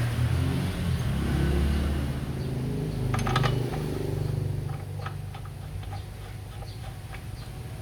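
STIHL 070 chainsaw's large two-stroke engine running, somewhat louder in the first couple of seconds and then settling to a lower, steadier speed, with its newly fitted ignition points and condenser. A few sharp metallic clicks about three seconds in.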